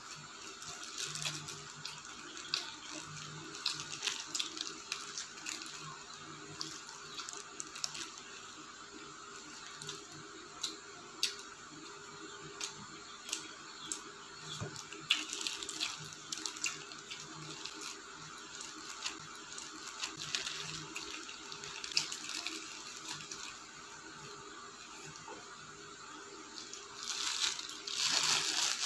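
Close-up chewing and wet mouth smacks from eating a burger, with many small clicks. Near the end comes a louder rustle of the paper burger wrapper.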